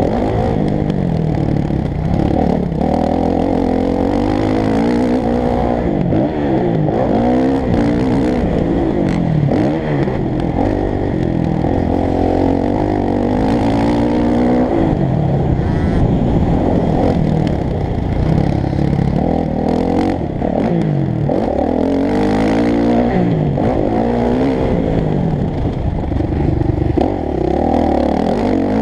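Motocross bike's engine being ridden hard on a dirt track, heard close from a camera mounted on the bike: the pitch climbs and drops again and again as the throttle is opened and closed and the gears are changed.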